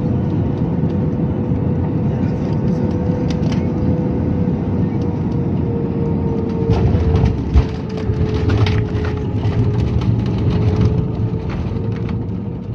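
Airbus A320-family jet airliner landing, heard from inside the cabin: steady engine and airflow noise with a steady whine. A thud about seven and a half seconds in marks the wheels touching down, followed by a louder rushing as the plane rolls out with its spoilers up.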